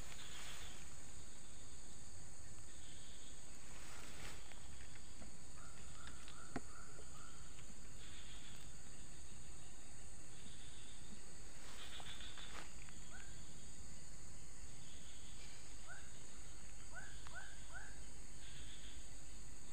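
Steady high-pitched insect drone from the surrounding vegetation, with a bird giving short chirps in quick runs of three or four every few seconds. A few brief rustles of brush are heard as well.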